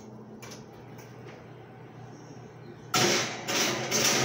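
Low room hum, then about three seconds in, three loud sliding, scraping noises as a baking pan goes into the oven over its metal rack.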